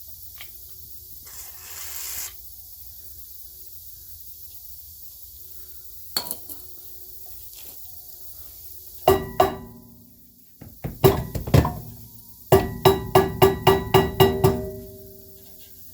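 A short hiss of PB Blaster penetrating oil spray, then a rubber mallet striking a 2010 Toyota Prius rear brake drum to knock it loose. There are a few separate blows, then a quick run of about eight, about four a second, and the metal drum rings after each hit.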